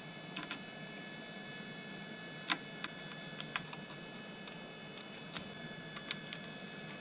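Small sharp clicks and taps of a screwdriver and metal soldering standoffs being screwed onto a laptop motherboard, the loudest about two and a half seconds in, over a steady high-pitched whine and hiss.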